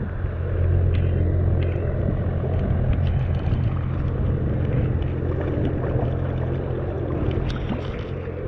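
Fast river water rushing over stones, a steady noise with a strong low rumble, with light splashes from a small hooked fish at the surface.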